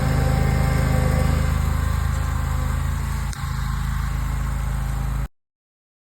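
An engine running steadily at an even speed, with a brief click about three seconds in, cutting off abruptly about five seconds in.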